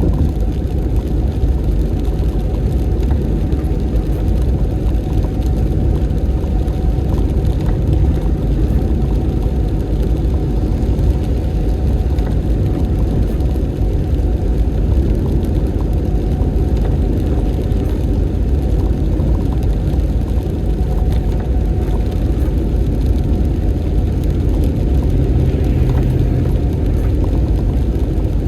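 Steady car road noise: a low, even rumble of engine and tyres while driving, with a faint steady hum above it.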